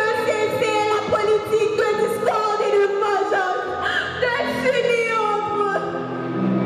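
A woman singing into a handheld microphone over accompanying music, her voice holding and sliding between long notes above steady low bass notes.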